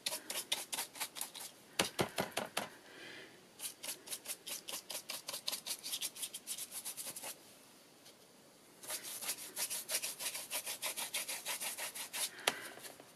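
Stiff glue brush scrubbed rapidly back and forth over textured, acrylic-painted craft card in dry-brushing strokes: a quick scratchy rhythm of about six or seven strokes a second, with a short pause a little past halfway.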